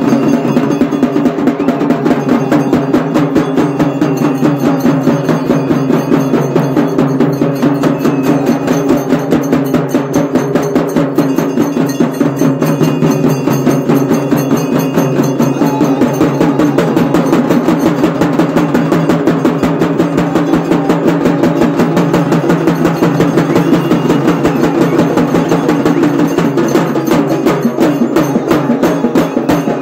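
Fast, steady drumming with sharp, rapid strokes that keep up an unbroken rhythm.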